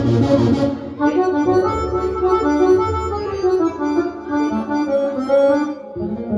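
Live music played on an electronic arranger keyboard: a melody with bass and accompaniment, the lead voice sounding like an accordion. The music changes about a second in and breaks off briefly near the end.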